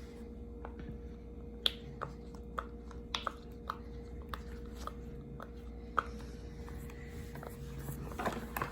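Silicone pop-it fidget toy being pressed: about ten soft, sharp pops at uneven intervals, a few close together, with light handling near the end.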